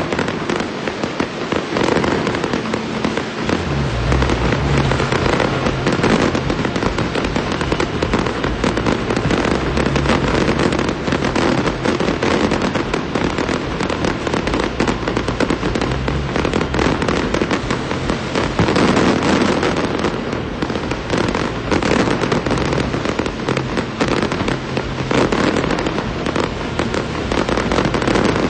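Large fireworks display: dense, continuous crackling and popping of many shells bursting at once.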